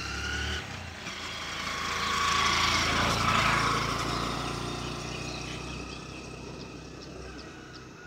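A motor vehicle passing by: its engine and noise grow louder to a peak about three seconds in, then fade away.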